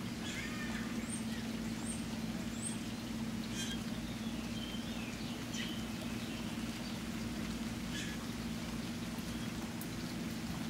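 Steady rain falling, an even hiss, with birds chirping over it: short high chirps in the first few seconds and more around the middle. A low steady hum runs underneath.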